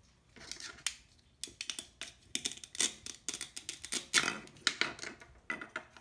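Velcro on a toy cutting-play pear ripping apart as a plastic toy knife slices it in two: crackly tearing in a series of short spurts with sharp clicks, starting about half a second in.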